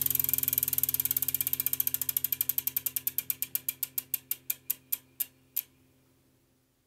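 Bicycle rear-wheel freewheel ticking as the wheel coasts to a stop: the clicks slow from a rapid buzz to a few a second, then stop about five and a half seconds in.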